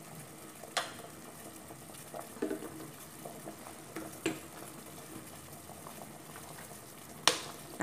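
Pot of pork broth boiling in a stainless steel pot, a steady bubbling, with a few sharp clicks of a utensil against the pot, the loudest near the end.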